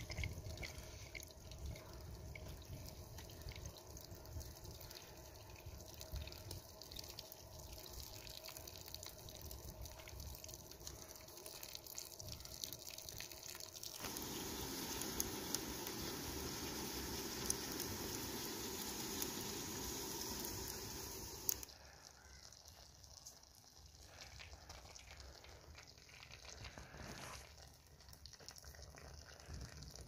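Water running and dripping from the plastic tap of a homemade wood-fired oil-tin water heater, splashing onto the ground. About halfway through a louder, steady watery hiss comes in for about seven seconds and cuts off sharply.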